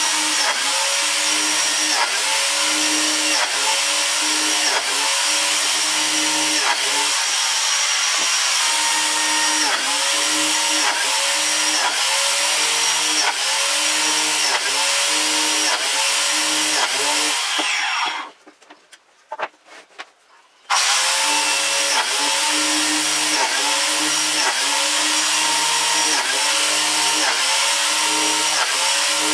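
Electric wood-planing machine running loudly, with a regular pulsing a little faster than once a second. It shuts off about 18 seconds in, and about three seconds later it is running again at full level.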